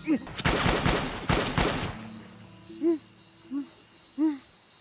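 A burst of rapid bangs lasting about a second and a half, then three short swooping notes of the background score.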